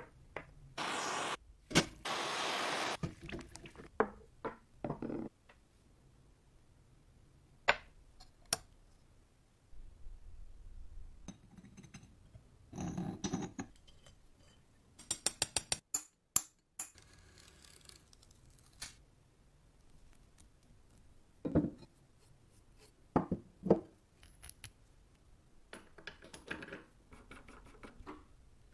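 Steel parts of a Wilton bullet vise being handled and fitted during reassembly: scattered metal clinks, knocks and scrapes, with a quick run of clicks about halfway through.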